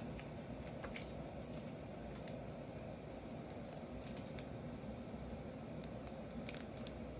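Light, scattered clicks and rustles of trading cards being handled and shuffled through, over a steady low room hum.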